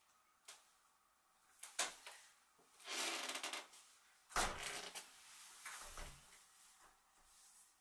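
Light knocks and rubbing of a person's body against a door as she slides down it to the floor: a couple of clicks, a brief rub, then a heavier thump a little past halfway and a softer one about a second and a half later.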